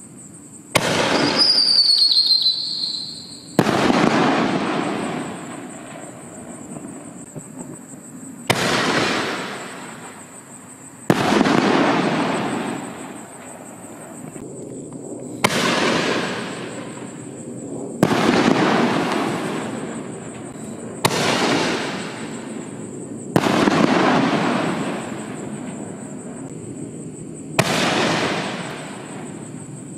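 6-inch reloadable aerial firework shells firing and bursting: about nine sharp booms a few seconds apart, each trailing off in a rolling rumble. About a second in, a high whistling tone falls slightly in pitch.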